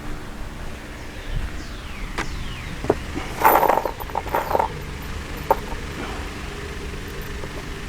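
Hardware being handled: a few sharp clicks of metal parts, with a louder burst of clinking and rustling about three and a half seconds in.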